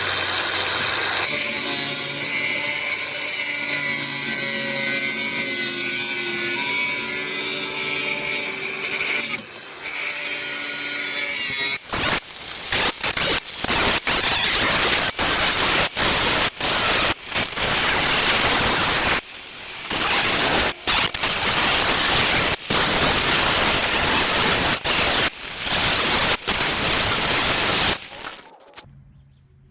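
Power tool cutting steel sheet for a rust-repair patch. Its motor whine shifts in pitch with the load for about the first twelve seconds. It then cuts in many short stretches with brief pauses, and stops near the end.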